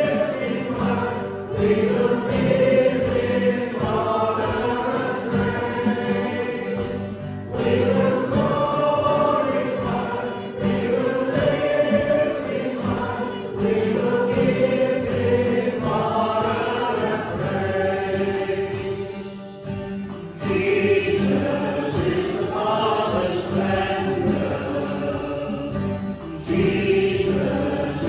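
Congregation singing a hymn with instrumental accompaniment, in sung phrases with short breaths between them.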